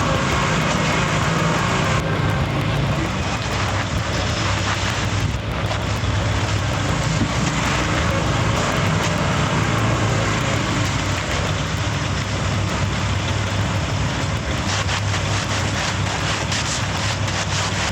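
A heavy-equipment engine running steadily, with a run of clicks and knocks near the end.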